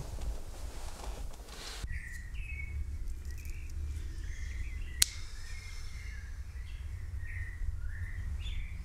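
Bedsheets rustling briefly, then, after an abrupt change, birds chirping in short repeated calls over a steady low rumble of outdoor ambience. A single sharp click comes about halfway through.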